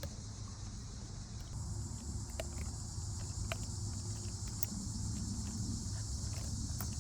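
Steady high-pitched chorus of insects, a little louder from about a second and a half in, over a low steady rumble, with a few small clicks and knocks.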